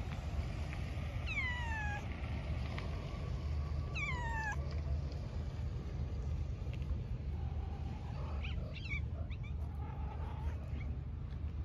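Grey tabby cat meowing twice, about 1.3 s and 4 s in, each meow a falling call under a second long. A steady low rumble runs underneath, with a few faint short chirps near the end.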